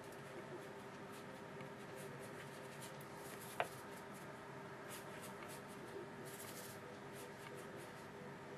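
Faint scratching and brushing of a paintbrush worked over watercolour paper, with one sharp click about three and a half seconds in, over a steady low hum.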